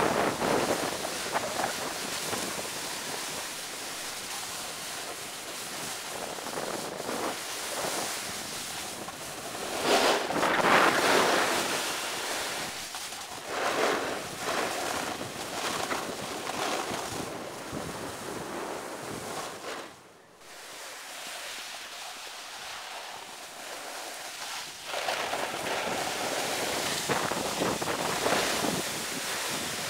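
Snowboard sliding and scraping over snow: a rushing hiss that swells and fades several times, with a brief drop about two-thirds of the way through.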